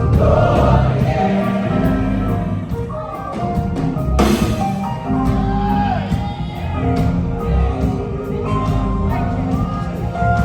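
Live gospel church music: sustained keyboard chords with drum kit, and a voice singing over them, with a loud crash about four seconds in.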